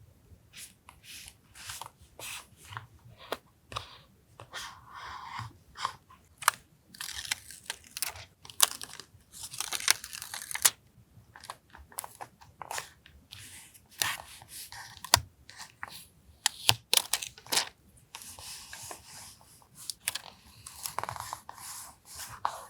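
Paper and stickers being handled for a vintage journal collage: many sharp taps and clicks, with several longer stretches of papery rustling and tearing.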